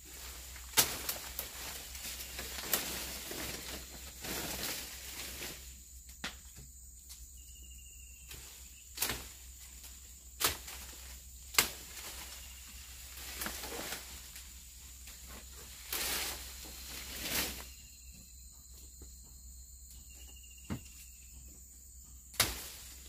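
Sharp knocks of wooden boards and timber pieces being handled and dropped, about nine spread out at uneven gaps, over the steady high buzz of insects.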